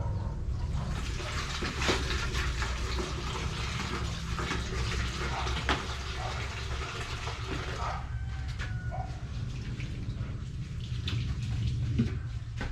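Wet concrete mix sloshing and pouring, with a couple of sharp knocks, over a steady low hum. The pouring fades out about eight seconds in.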